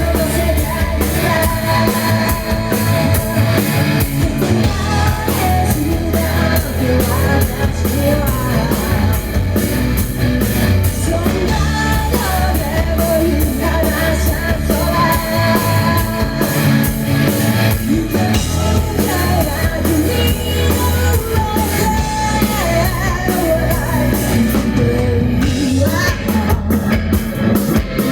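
A rock band playing live: a singer over a drum kit and band, loud and driving throughout.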